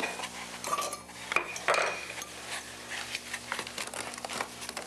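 Kitchen utensils clattering against dishes: measuring spoons and cups knocking and clinking on a glass bowl, with a louder cluster of ringing clinks about a second and a half in.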